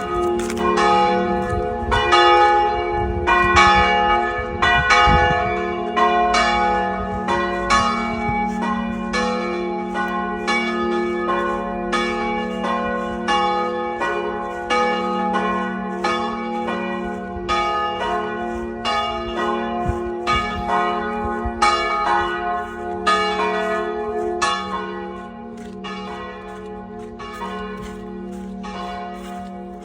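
Church bells ringing one after another in quick succession, a new stroke about every half second over a sustained ringing hum, growing quieter in the last few seconds.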